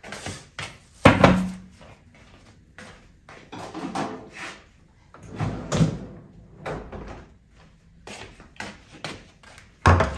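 Kitchen handling sounds: a run of knocks, clatters and scrapes, with a loud knock about a second in and another just before the end, as frozen syrniki are handled and packed.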